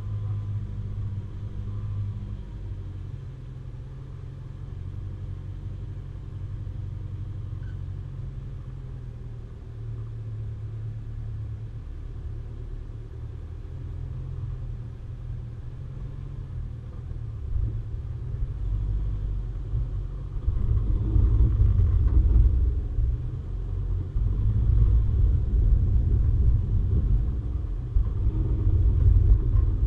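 Low, steady rumble of a vehicle on the move, growing louder and rougher about two-thirds of the way through.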